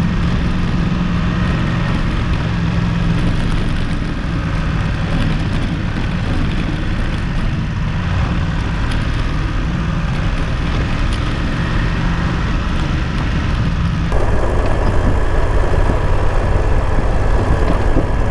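BMW motorcycle engine running at a steady road speed on a gravel trail, with wind rushing over the microphone. About three-quarters of the way through, the sound changes abruptly to louder, hissier wind noise.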